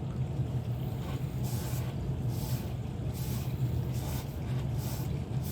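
A steady low hum, over which come a few faint, irregular rubbing strokes: a finger rubbing honing oil across an Arkansas sharpening stone, working the metal particles out of it.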